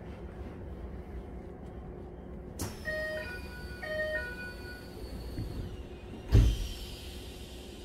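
Keikyu 1000-series train's door chime sounding twice, a short run of stepped beeps each time, as the passenger doors start to close, followed by a heavy thump as the doors shut together. A low steady hum from the standing train runs underneath.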